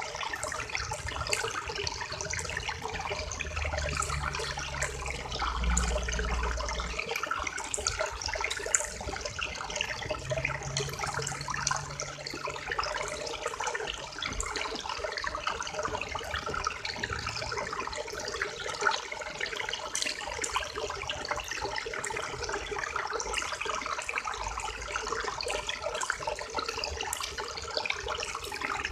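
River water flowing steadily, a continuous rush dotted with small splashes and gurgles.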